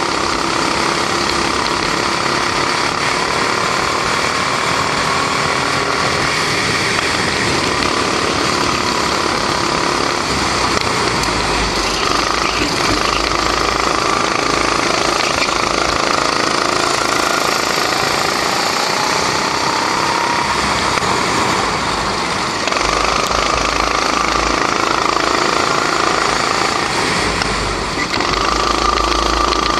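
Rental go-kart's 270cc four-stroke single-cylinder Honda engine running hard, heard from on board the kart, rising and falling in pitch as it accelerates and slows through the corners. The loudness dips briefly twice in the second half.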